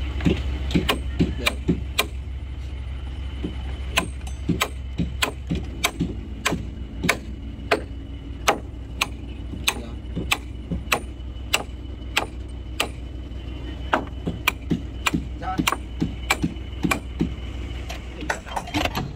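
Lever chain hoist being ratcheted: sharp metallic ratchet clicks, about two to three a second with a short pause near the start, as it draws a heavy new gunwale plank tight against a wooden boat's hull. A steady low hum runs underneath.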